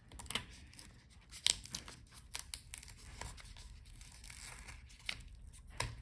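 Adhesive tape being peeled off a laptop screen's video cable connector: quiet crackling and tearing with a few small sharp clicks.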